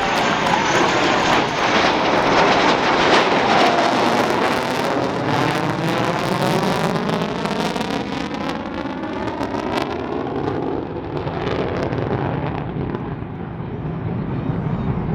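Low-flying fixed-wing airplane passing overhead: its engine noise is loud at first and eases off over the last few seconds as it moves away.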